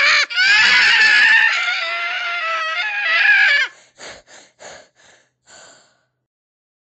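A cat yowling: one long, wavering, drawn-out call lasting about three and a half seconds, followed by a few short, fainter sounds that die away.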